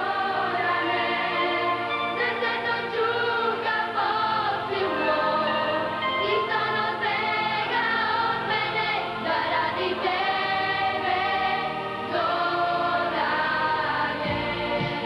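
Children's choir singing held notes over instrumental accompaniment.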